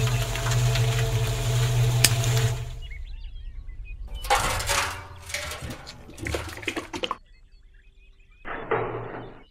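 Small electric motor of a miniature toy concrete mixer running with a steady hum, cutting off about three seconds in. Then wet cement slurry pouring and splashing into a small tin bucket in three short spells.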